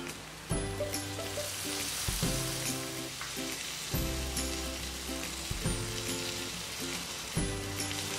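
Sliced shallots and spices frying in an oiled pan, sizzling, with the sizzle growing as chopped tomato is tipped in about half a second in. Background music with repeating notes plays throughout.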